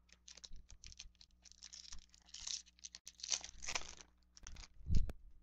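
A 2014 Topps Chrome jumbo pack's foil wrapper being torn open by hand, crinkling and crackling in irregular bursts. A single thump comes near the end.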